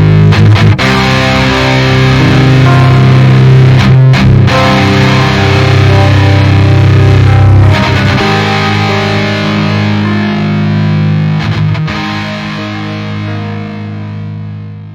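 Outro music: distorted electric guitar chords with effects, changing chord a few times and fading out near the end.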